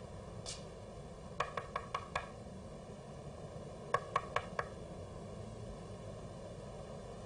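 Knocking on an apartment front door: five quick knocks about a second and a half in, then a second run of four knocks about four seconds in.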